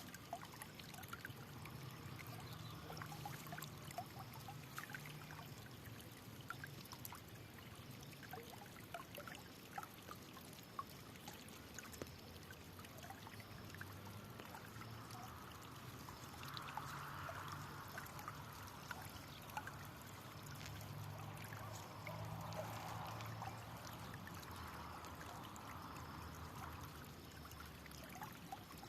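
Faint flowing water trickling and pouring, with a steady patter of small splashes. It swells into a fuller gurgle a little past halfway and again later on.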